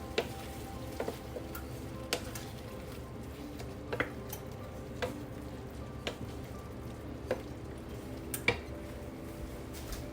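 Stir-frying in a pan: a steady sizzle under the utensil stirring, with sharp clinks of the utensil against the pan about once a second, the loudest one near the end.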